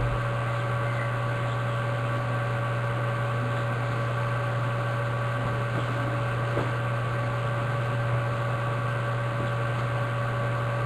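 Steady electrical hum with an even hiss beneath it, unchanging throughout, with no distinct event.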